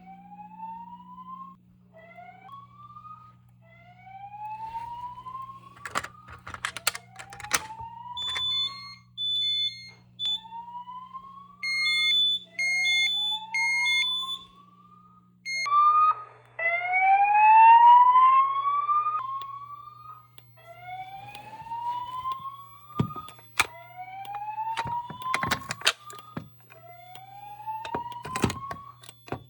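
Fire alarm voice-evacuation speaker sounding a repeated rising whoop tone, each sweep about a second and a half long. Partway through, a fire alarm horn sounds twice in groups of three short beeps, the temporal-3 evacuation pattern. A few sharp clicks come in between.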